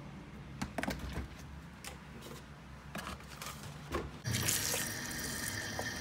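A few light knocks and clatters, then water running steadily from a tap into a sink from about four seconds in.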